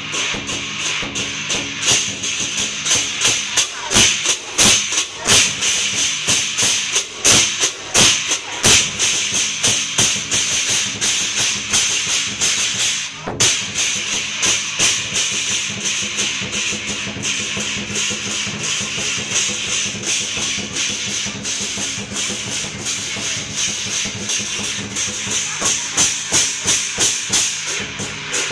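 Lion dance percussion: a large drum beaten in a fast, dense rhythm under continuously clashing cymbals, with the loudest strikes in the first ten seconds.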